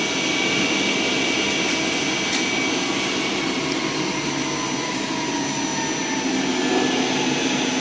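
CNC lathe running its program with the door open: the spindle turns the workpiece while the tool cuts, giving a steady machining whir and hiss with a whining tone that slowly falls in pitch.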